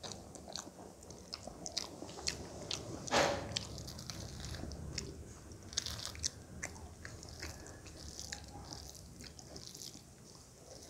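Close-miked mouth sounds of a person chewing a mouthful of rice and curry, many small wet clicks with one louder one about three seconds in, together with fingers mixing rice into curry on a metal plate.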